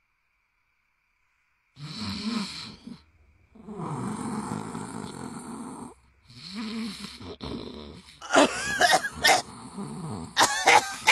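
A man snoring loudly in three long drawn-out breaths, starting about two seconds in. About eight seconds in, a woman's series of sharp, deliberate fake coughs follows.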